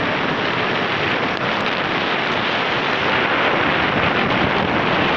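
Steady rush of wind buffeting the microphone while riding a motorcycle along a road, with the motorcycle's running mixed in.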